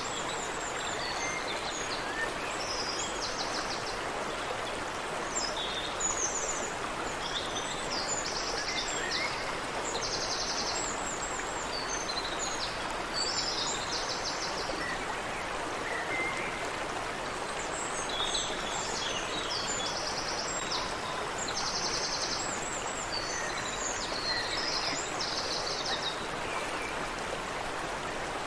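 Water running steadily in a stream, with small birds calling over it: scattered high chirps and repeated short, rapid trills of about half a second each.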